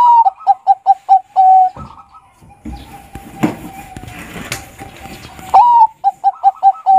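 Bangkok-type zebra dove (perkutut) cooing. Each phrase opens with a sliding note, runs through a quick series of short coos and ends on a longer held coo. The phrase comes twice, the second one near the end.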